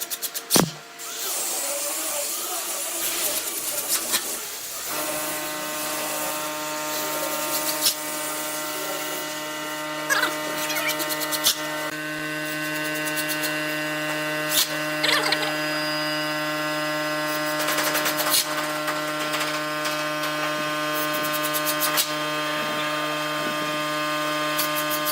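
A power tool's electric motor starts about five seconds in and runs at a steady pitch, with scattered clicks and knocks from the work over it. Before the motor starts there are a few seconds of handling noise and clicks.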